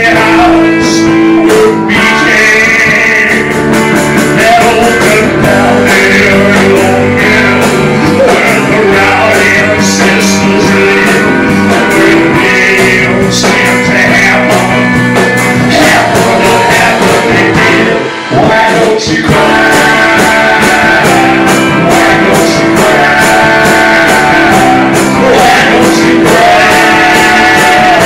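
Live rock band playing loudly: a male singer over electric guitar and drum kit. The music breaks off for a moment about two-thirds of the way through, then comes back in.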